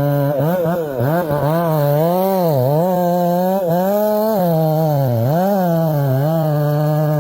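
Two-stroke chainsaw running at high revs, its pitch dipping and recovering again and again as the chain bogs down in the wood and speeds back up.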